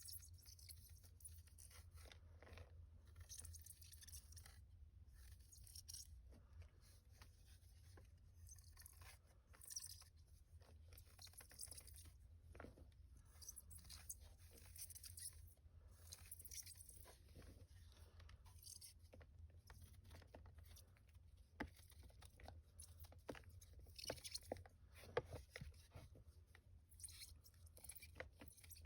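Quiet, close-up crunching and crackling of reformed gym chalk blocks scented with pine cleaner, being crushed and crumbled by hand: a dense run of small cracks, with a few sharper snaps near the end.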